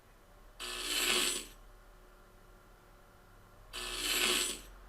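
Two bursts of a radio-static glitch sound effect, a 'static pass-by' of crackling transmission noise, each about a second long and about three seconds apart.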